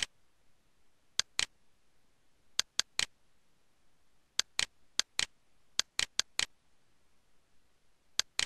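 Computer mouse button clicking: sharp clicks in quick pairs and short runs, about a dozen and a half in all, over a faint steady hiss.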